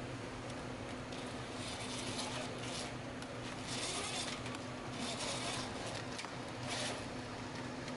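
Wiring harness being pulled and worked through the engine bay, rubbing and scraping against plastic and metal parts in short, irregular bursts of a zipper-like rasp. A faint steady hum sits underneath.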